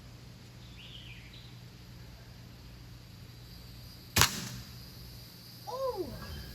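A single sharp crack from a BB gun firing at a can, about four seconds in. About a second and a half later comes a short pitched tone that falls steeply.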